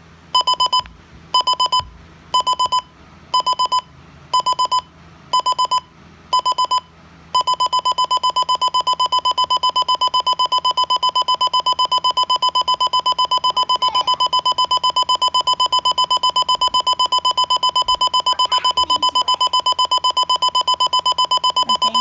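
Midland WR120 weather radio's alarm clock going off, a loud, high, rapidly pulsing beep. It first sounds in half-second bursts about once a second, then about seven seconds in switches to continuous rapid beeping.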